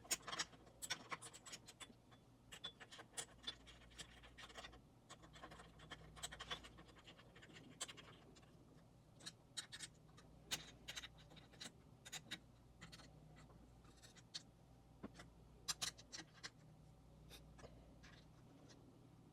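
Scattered light clicks, taps and short scrapes of camera-rig parts being handled and fitted by hand, coming at irregular intervals.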